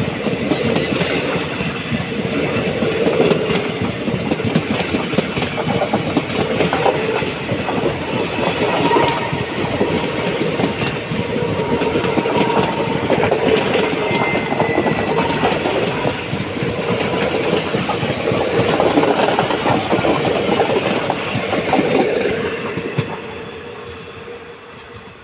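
ICF passenger coaches of an express train running past at speed: steady wheel-and-coach noise with a fast clickety-clack over the rail joints. It falls away quickly about 23 seconds in as the last coach passes and the train draws off.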